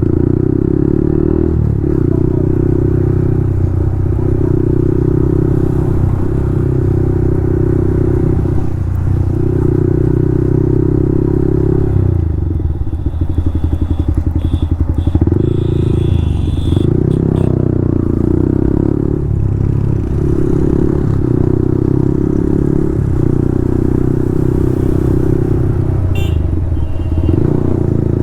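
Yamaha MT-15's single-cylinder engine running through a loud Akrapovic full-system exhaust while riding. The note rises and falls again and again as the bike pulls through the revs and shifts. About halfway it drops for a couple of seconds to a low, pulsing note.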